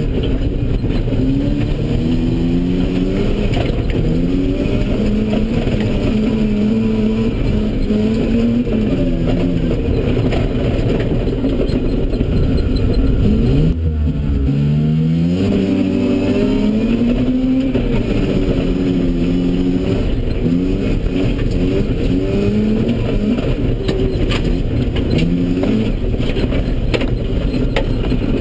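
Mazda RX-7's 13B rotary engine heard from inside the cabin, revving up and down through the gears at full effort on a dirt course. About halfway through the pitch drops sharply, then climbs again. Loose dirt and gravel hiss and click under the car throughout.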